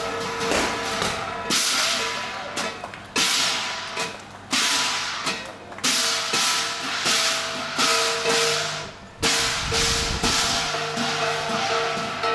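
Qilin dance percussion band playing: a cymbal crash about every second and a half, each ringing on, over a ringing gong and drum beats.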